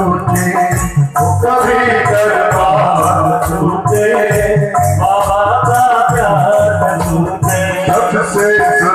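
Devotional bhajan music: a sustained melody over a regular drum beat, with rattling hand percussion keeping time.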